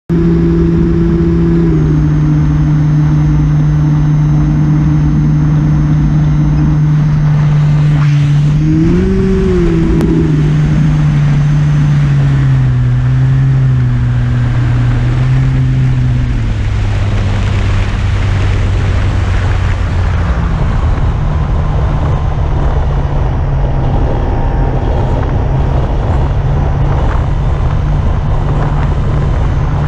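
Motor and propeller of a small camera-carrying RC aircraft heard from on board: a steady hum whose pitch rises briefly about nine seconds in, then drops in two steps as the throttle eases. Wind rushes over the microphone, growing in the second half.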